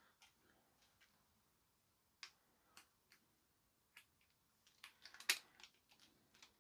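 Faint, scattered plastic clicks and taps from an LG TV remote being handled and its buttons pressed, with a quicker run of clicks about five seconds in. The remote gives no response to the presses: it is still faulty.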